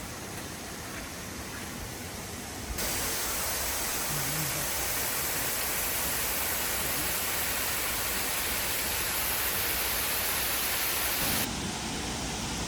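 Steady rushing hiss of falling water from a waterfall or rapids. It jumps louder about three seconds in and drops back near the end.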